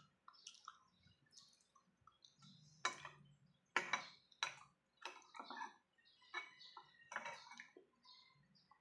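A metal spoon clinks against a ceramic bowl while scooping up bilo-bilo, with a few sharp clinks about three to four and a half seconds in. Between them are close, wet mouth sounds of chewing and slurping.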